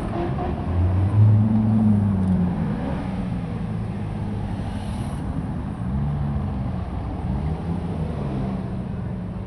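Chevrolet Corvettes' V8 engines running as the cars drive slowly past one after another, loudest about a second in as one goes by close. The engine note rises and falls again later as the next cars pass.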